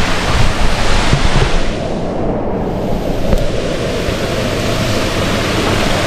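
Steady rushing of a small waterfall cascading over rocks into a stream. About two seconds in, the bright hiss drops away and a duller, lower rush carries on.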